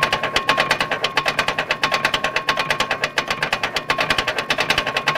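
Rapid, even metallic clacking from a car's front wheel hub as the wheel turns, about a dozen knocks a second, with a steady high whine. It is the sound of a failed front wheel bearing with play in the hub.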